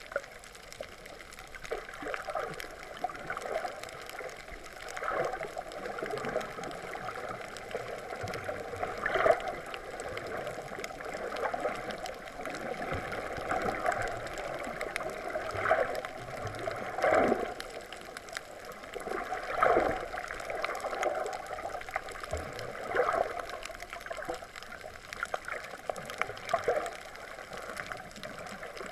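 Muffled water sloshing and gurgling, heard by a camera held underwater, swelling every couple of seconds.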